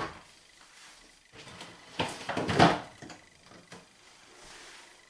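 A fridge being opened and a bottle of limeade put onto a shelf inside: a knock at the start, then a cluster of clunks and rattles against the fridge shelves, loudest two to three seconds in.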